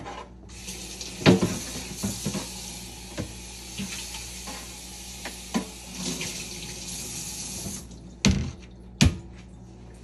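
Kitchen tap running into the sink for about seven seconds, with a few clinks of dishes, then turned off. Two sharp knocks follow near the end.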